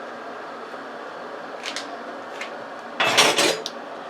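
A couple of light clicks, then a short loud clatter with two peaks about three seconds in, over a steady faint hiss: handling noise in a kitchen.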